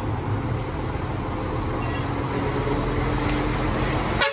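A motor vehicle engine running steadily with a low rumble, and a sharp click near the end.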